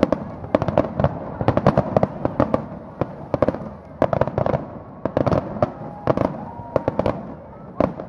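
Aerial fireworks shells bursting in a rapid, irregular series of sharp bangs, several a second.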